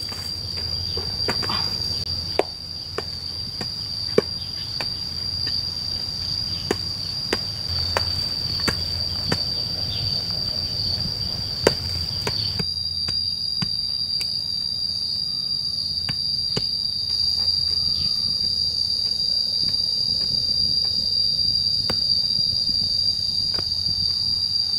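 Steady high-pitched drone of insects, with repeated sharp knocks of a pickaxe pounding clay soil, coming close together through the first half and sparser after that.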